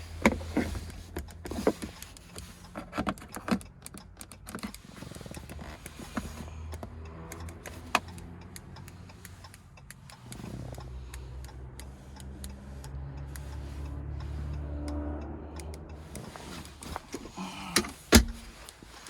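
Clicks, knocks and rattles of a proximity key fob being handled and moved around the center console inside a car. In the middle, a low steady hum from a small electric motor runs for several seconds. A sharp click comes near the end.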